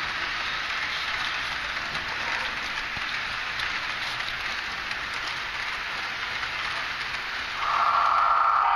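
Model diesel locomotive with a sound decoder running on its track: a steady hiss. About seven and a half seconds in, a louder sustained chord of several tones starts and holds.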